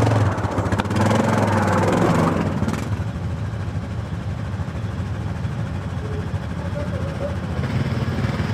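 ATV engine revving hard for the first couple of seconds, then dropping back to a lower, steadier run.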